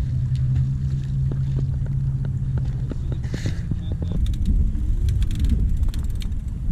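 A boat's motor running steadily for about four seconds, then giving way to a rough, low rumbling noise, with scattered light clicks.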